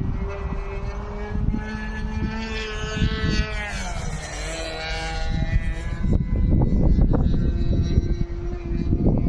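Engine of a radio-controlled aerobatic model airplane in flight. Its pitch climbs, then drops steeply about four seconds in and settles lower. Wind buffets the microphone throughout, heavier in the last few seconds.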